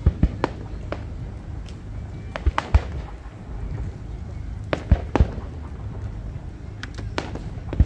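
Fireworks bursting overhead: sharp bangs in small irregular clusters, about every two seconds, over a continuous low rumble.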